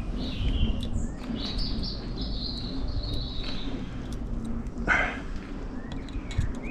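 A bird singing: high whistled notes, one held for about two seconds with small steps in pitch. Faint clicks of small parts being handled sound underneath, and a short rasp comes about five seconds in.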